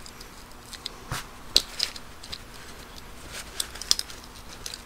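A vintage steel adjustable locking wrench being handled and wiped with a paper towel: light clicks of its metal parts and soft rustling, with a few sharper clicks scattered through.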